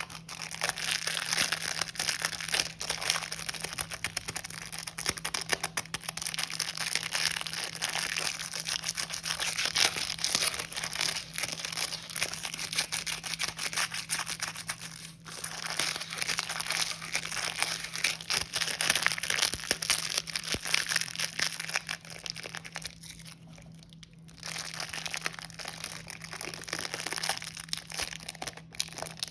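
Plastic snack packaging crinkling and tearing as it is handled and opened, in dense, close-up crackles. There is a short break about halfway through and a quieter stretch a few seconds before the end, over a faint steady low hum.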